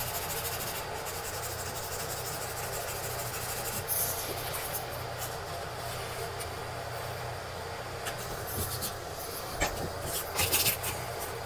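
Sandpaper rubbed by hand over a cured filler patch on a wet fiberglass bathtub, smoothing the repair flush with the gelcoat: scratchy rubbing in short spells, louder about four seconds in and again near the end, over a steady low hum.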